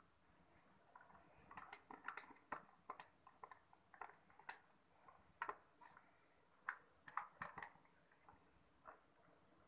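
Small dog lapping and licking apple juice from a carton held to its mouth: faint, irregular wet clicks of the tongue, coming in small clusters.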